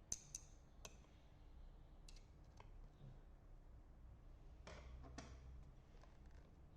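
Near silence with a few faint, scattered clicks of small camera parts being handled during reassembly, and a short cluster of soft clicks about five seconds in.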